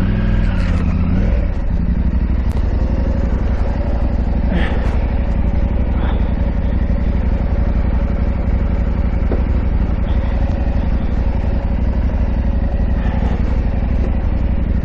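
KTM 890 Adventure R's parallel-twin engine running at low, steady revs, its note shifting in the first second or so, with a few light knocks.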